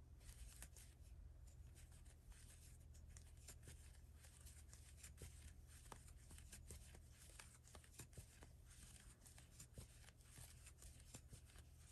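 Faint, irregular scratching and small ticks of a crochet hook working yarn through stitches, over a steady low hum.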